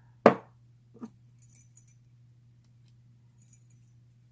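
Small brass padlocks and a lock pick being handled: a sharp knock a moment in, then a few light clicks and faint metallic tinkling of pick and lock.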